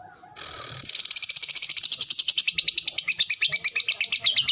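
Lovebird singing a long, rapid chattering trill of sharp, high chirps, about a dozen a second. It starts just under a second in and runs on without a break: the sustained song that lovebird keepers call ngekek.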